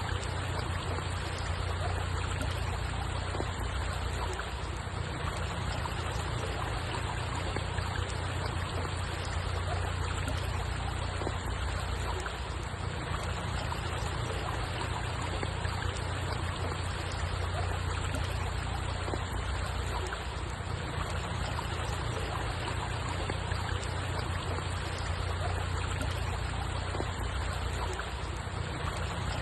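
Steady, unbroken sound of running water, weighted toward a deep low end, with no distinct splashes or other events.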